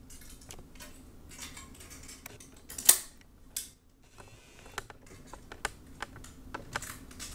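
Light plastic clicks and rattles of tombstone lampholders being pushed into a sheet-metal lamp bracket, one sharper click about three seconds in.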